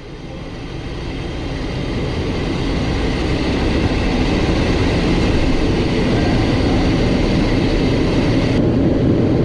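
Cockpit noise of a Cessna Citation XLS business jet on its takeoff roll. The twin turbofan engines and the air noise build over the first few seconds, then hold steady and loud. A thin high whine runs under it and stops near the end, as the jet rotates and lifts off.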